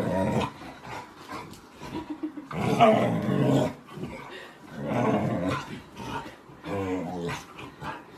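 Pet dog growling in a drawn-out, grumbling voice: about four growls, each roughly a second long.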